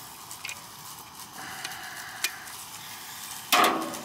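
Light clicks and scraping of a hand crimping tool working a wire connector on the terminals of an air conditioner's Copeland scroll compressor, with one brief louder clatter near the end.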